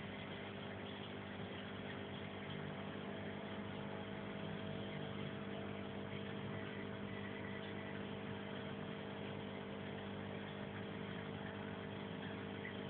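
Aquarium pump humming steadily over a constant hiss.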